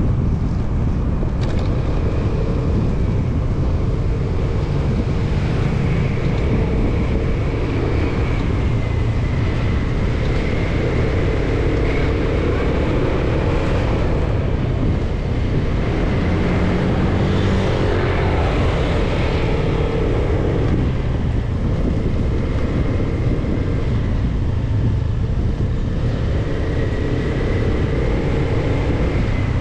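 Motorcycle engine running while riding, its pitch drifting gently up and down with the throttle, over a constant heavy low rumble.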